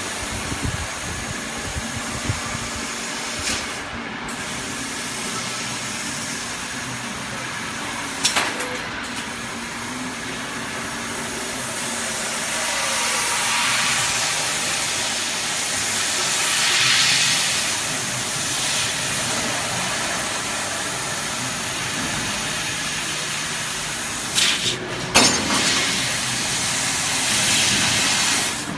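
A 150 W CO2 laser cutting machine cutting stainless steel, giving a steady hiss that swells for several seconds in the middle. A few sharp clicks come about eight seconds in and again near the end.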